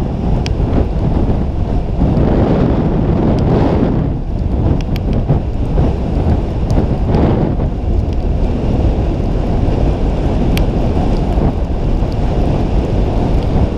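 Wind rushing over an action camera's microphone during a fast downhill run through deep powder: a loud, steady low rumble that swells and eases, with a few faint clicks.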